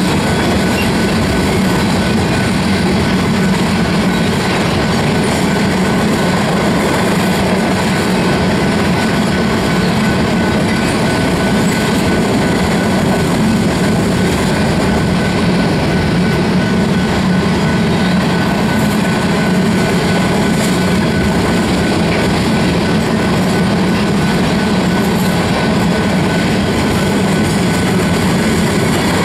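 Covered hopper cars of a freight train rolling past: a loud, steady rumble and clatter of steel wheels on the rails, with a thin steady ringing tone above it.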